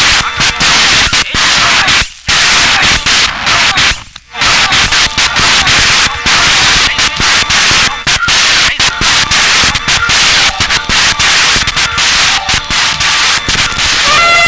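Loud, harsh turntable noise through a DJ mixer: a dense static-like hiss, chopped on and off in quick stutters as the mixer cuts it, with two brief breaks about two and four seconds in.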